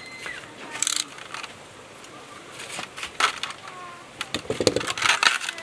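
Action figure packaging being opened by hand: short crackling rustles about a second in and three seconds in, then a quicker run of crinkling toward the end as the box is worked open.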